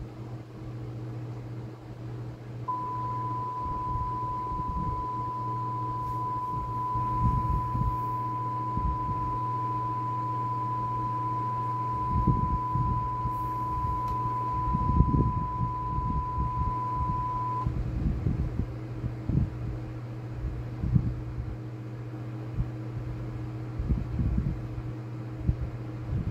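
Abnormal VHS tape audio through a TV's speakers: a low, moaning hum with irregular low surges. A single steady high beep-tone starts about three seconds in and holds for about fifteen seconds before cutting off.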